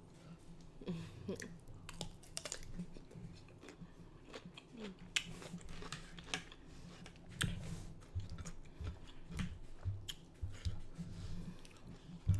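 Close-miked eating sounds: irregular small clicks and crackles of cooked lobster shell being picked apart by hand, mixed with chewing and wet mouth sounds.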